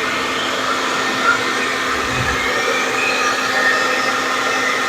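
Hair dryer running steadily: a constant rush of air with a steady hum beneath it.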